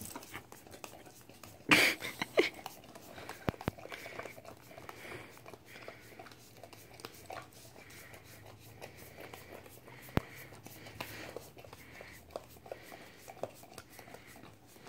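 A dog licking the inside of a red paper milkshake cup, with irregular wet tongue laps, small clicks and crinkles of the cup throughout. A louder knock comes about two seconds in.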